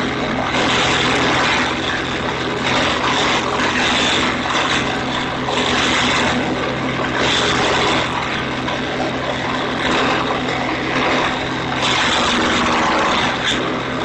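Small engine-driven garden wood chipper running steadily while conifer branches are fed in. Over its engine hum comes a shredding rush that swells and drops every second or two as each load of branches is chipped.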